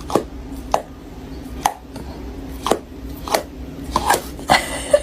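A series of sharp knocks on a hard surface, about nine, coming at uneven intervals and bunching together near the end.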